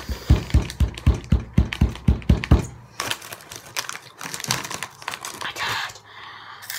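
Rapid, evenly spaced thumps, about five a second, stop about two and a half seconds in. Then comes a few seconds of rustling and crinkling from a foil Hot Cheetos bag as a hand reaches in for a chip.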